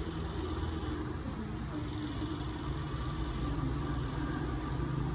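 A steady low motor-like rumble, with a few faint sharp clicks from stainless cuticle nippers snipping at the edge of a toenail.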